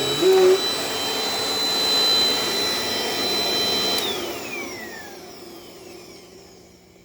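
Dirt Devil Dynamite Plus vacuum cleaner running steadily with a high whine. About four seconds in it is switched off and spins down, its whine falling in pitch and fading away.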